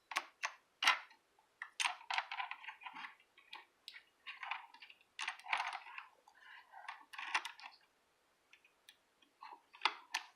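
Clicky white Alps key switches on a kidBoard KB-PC09 keyboard clicking in irregular flurries as a small child mashes the keys, with a short lull about eight seconds in.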